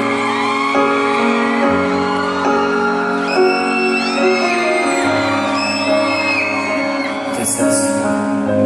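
Instrumental introduction of a pop ballad, with sustained chords and gliding melody lines and no singing yet; a brief high-pitched whoop from the audience comes near the end.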